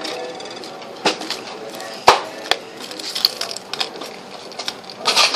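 Scattered knocks and clicks of items being handled at a shop checkout counter, the loudest about two seconds in, with voices faint in the background and a short hiss near the end.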